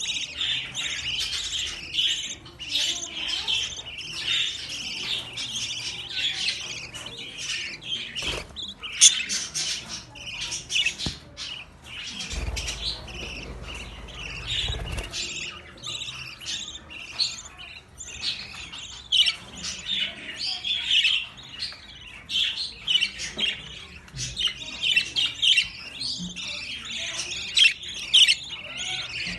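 Many budgerigars chirping and chattering at once, a dense, continuous warble of short high chirps.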